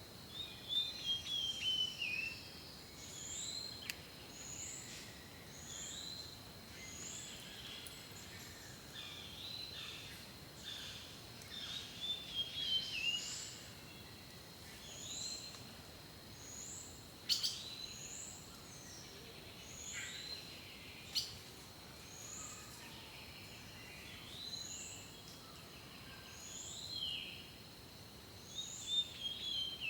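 Several wild birds singing: one repeats a short high chirp about once a second, while others give falling warbled phrases near the start, in the middle and near the end. A steady high thin tone runs underneath.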